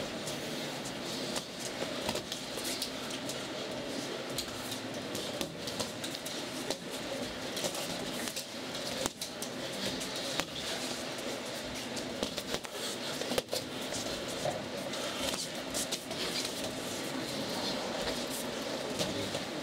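Boxing gym sparring sounds: irregular sharp hits and scuffs, from gloves and footwork, scattered over a steady room noise.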